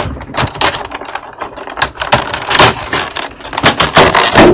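Clear plastic blister-pack tray of a drawing set being handled and lifted, crackling and clicking irregularly, with the loudest crackles about two and a half seconds in and near the end.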